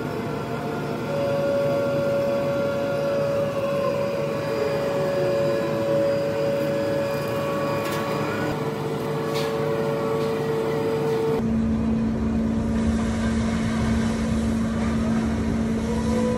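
Ship's deck crane machinery working a clamshell grab: a steady motor whine made of several tones, some sliding slowly up and down in pitch, over a rumbling machinery background. About eleven seconds in the sound changes suddenly to a lower steady hum.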